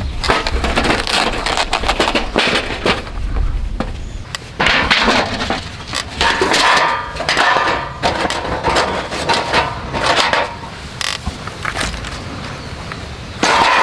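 A Picogrill folding fire pit being unpacked and set up: its thin stainless-steel firebowl sheet flexing and clattering, with repeated knocks and scrapes as it is handled and laid on the ground.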